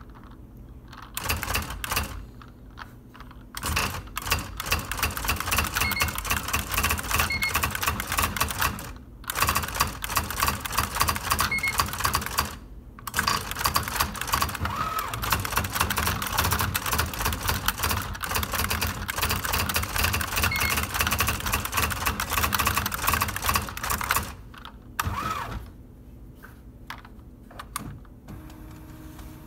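IBM Wheelwriter 10 Series II electronic typewriter typing: fast clicking strikes of its daisywheel printwheel in long runs, broken by short pauses, thinning to a few isolated clicks near the end.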